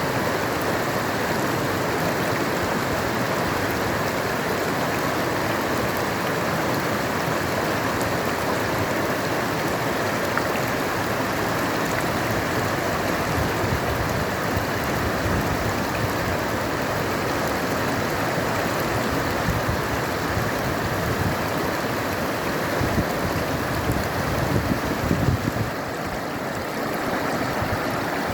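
Paraíba River water rushing in a steady, dense wash of noise, with a few louder low bumps near the end.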